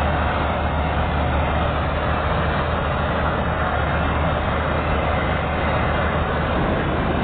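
Chardikala combine harvester running steadily, a constant heavy engine drone with a strong low hum and machinery noise.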